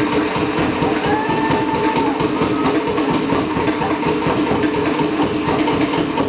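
Fast, continuous Polynesian drumming, dense and steady in level.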